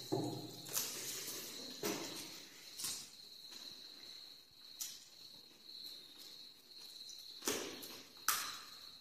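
Eating sounds of people eating rice and curry by hand: sharp lip smacks and chewing clicks about once a second at first, sparser in the middle, with two louder ones near the end. Under them runs a steady, thin high-pitched tone.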